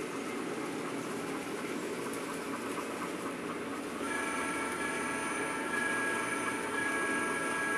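Recorded railroad sound from a model layout's ambient sound system, playing over the running of N-scale trains: a steady rumble, then about four seconds in a multi-note train horn comes in and holds.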